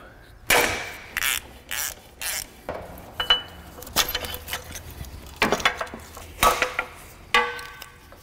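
Hand tools clinking and knocking against metal parts under a car's engine bay: a string of sharp clanks and clicks at uneven intervals, some of them ringing briefly.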